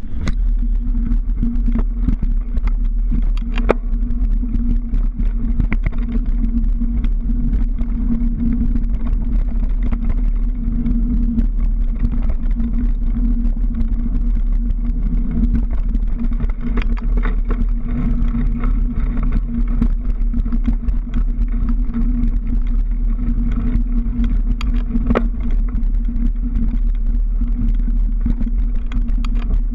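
Mountain bike ridden over a rough dirt and stone track, heard from a bike- or rider-mounted action camera: a loud steady rumble of wind and tyres, with frequent clicks and knocks as the bike rattles over stones.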